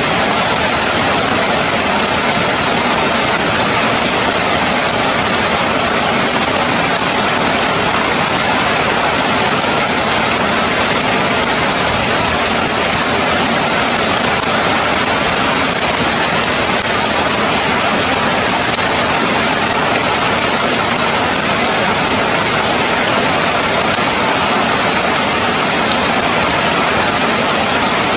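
Heavy rain falling steadily on forest leaves, an even, unbroken hiss.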